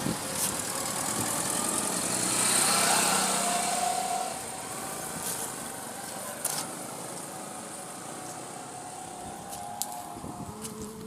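Street traffic noise: a motor vehicle passes, loudest about two to three seconds in, with a few sharp clicks.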